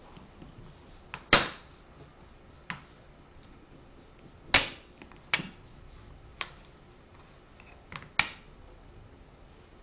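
Tegu magnetic hardwood blocks clicking together as they are fitted: about six sharp wooden clicks, the loudest about a second in, midway, and near the end.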